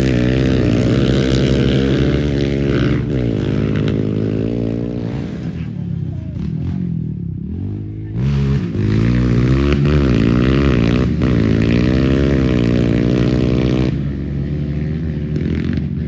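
Dirt bike engine revving hard through the gears, its pitch climbing and dropping with each shift. It eases off about six seconds in, then accelerates hard again about two seconds later.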